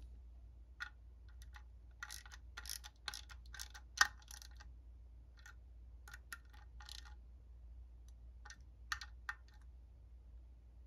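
Screwdriver tightening the screws that hold the brush holder in a Ford alternator housing: irregular small metallic clicks and scrapes, the sharpest about four seconds in.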